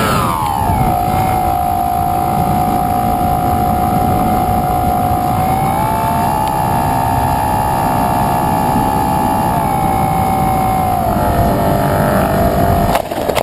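Model airplane's motor and propeller, heard with heavy wind rush. The pitch drops sharply as the throttle comes back at the start, then holds steady with small rises and falls. A couple of sharp knocks come near the end.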